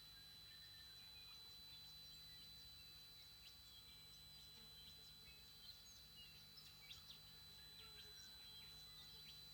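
TriStar TS-MPPT-60 solar charge controller giving off a steady, high-pitched squeal, with birds chirping in short scattered calls around it, most of them in the second half.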